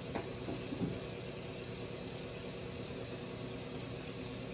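Engine idling with a steady hum, and a couple of light knocks in the first second.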